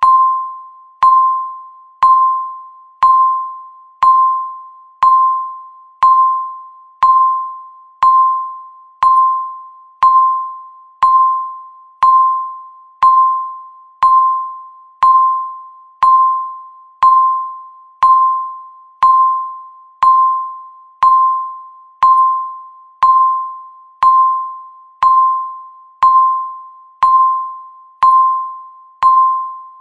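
Countdown timer's tick sound marking every second: a single clear electronic ping once a second, each struck sharply and fading away before the next.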